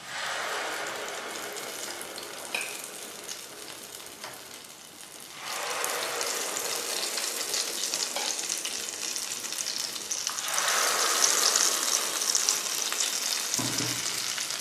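Deep-frying sizzle of dhuska batter (ground rice and chana dal) in a kadai of hot oil. The sizzling surges louder as each new ladleful goes into the oil: at the start, about five and a half seconds in, and about ten seconds in.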